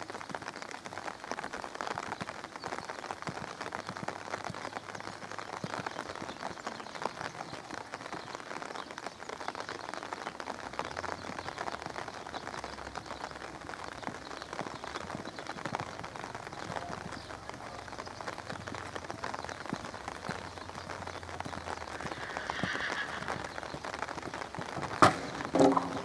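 Steady outdoor hiss with soft hoofbeats of a horse cantering on an arena's sand footing. A single sharp knock sounds about a second before the end as the horse takes a fence.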